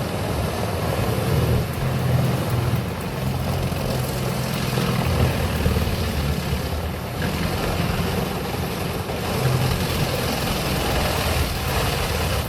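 Heavy diesel-powered machinery running steadily: a deep engine drone with a noisy hiss over it.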